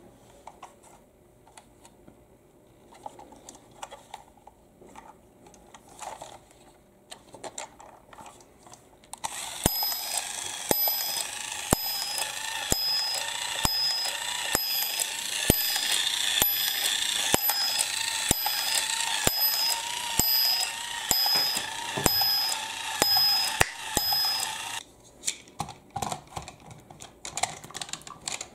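Battery-powered domino-laying toy train switched on. An electronic chime tune plays over a steady clicking from its mechanism, about twice a second, and a high repeating beep. It stops suddenly after about fifteen seconds. Light handling clicks of the plastic toy come before and after.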